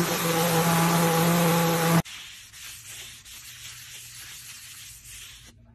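Electric random orbital sander running on walnut, a steady motor hum over sanding hiss, as a bowtie inlay is sanded flush. About two seconds in the sound cuts off abruptly, leaving only faint low noise.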